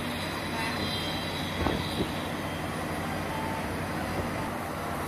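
Tour boat's engine running steadily under a broad rush of noise, with two short knocks close together about a second and a half to two seconds in.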